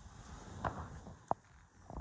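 Faint footsteps on sand, with a few short scuffs and clicks, the sharpest about a second in.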